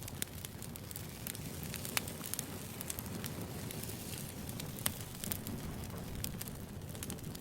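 Wood campfire crackling: a steady low rush of burning with frequent irregular sharp pops and snaps.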